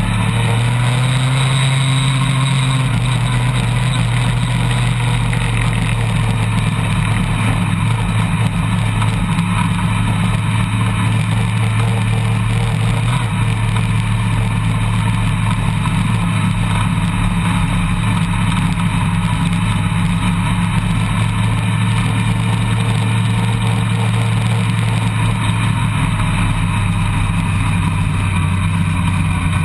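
Engine of a handlebar-steered off-road vehicle running at a steady cruising speed, a constant low drone with a rushing noise over it.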